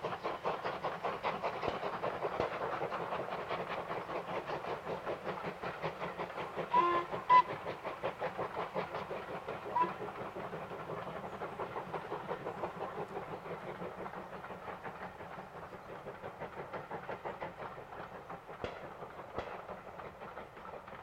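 Two LMS Ivatt Class 2 steam locomotives double-heading a passenger train, their exhaust beating quickly and fading as the train draws away. Short whistle blasts sound about seven seconds in and once more near ten seconds.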